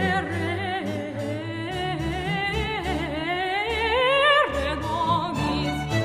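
Background music: a wordless, operatic-style melody with wide vibrato over sustained low notes. The melody glides upward from about two seconds in and breaks off shortly after four seconds.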